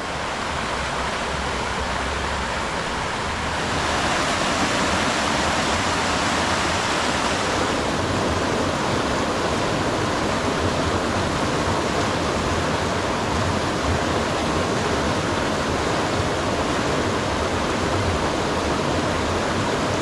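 Creek water rushing over a small rapid, a steady rush that gets a little louder about four seconds in.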